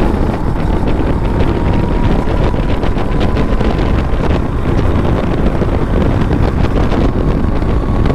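Racing kart's engine running at speed under heavy wind buffeting on the onboard microphone. A faint whine in the engine note climbs slowly as the kart accelerates.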